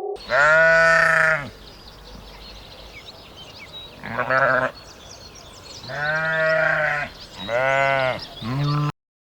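A farm animal bleating, five calls of about half a second to a second each, each rising then falling in pitch. Faint high chirping goes on between the calls, and the sound cuts off abruptly near the end.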